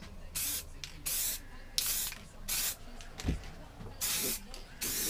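Aerosol spray-paint can hissing in short repeated bursts as paint is sprayed onto a lawnmower deck.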